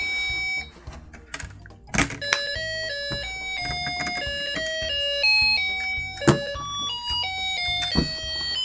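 Snap Circuits Jr. music IC playing its electronic tune through the kit's small speaker, one bright beeping note after another. Early on the tune breaks off. A sharp tap about two seconds in sets it playing again, which is the whistle-chip sound-activated switch reacting to the tap. Two more knocks follow later from the speaker being handled.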